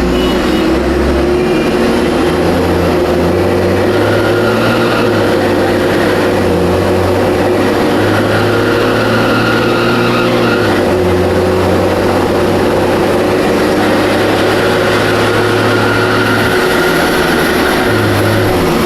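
Mercedes-Benz O500M city bus engine running under way, its low note stepping up and down in pitch several times. The uploader says the exhaust is holed and a belt is slipping.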